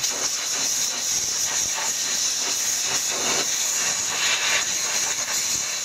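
Aerosol cleaner can spraying in one long, unbroken hiss, washing oil residue off the rear differential around the half-shaft seal.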